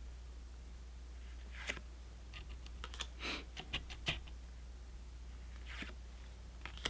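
Pokémon trading cards being handled and flipped through: scattered light clicks and snaps with a few short swishes of cards sliding, over a low steady hum.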